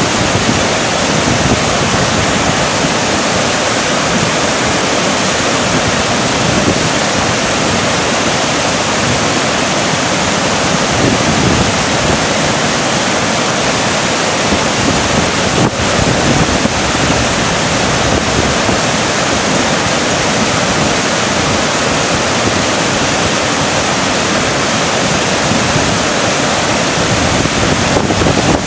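Whitewater rapids of the Yellowstone River rushing over rocks: a loud, steady rush of water.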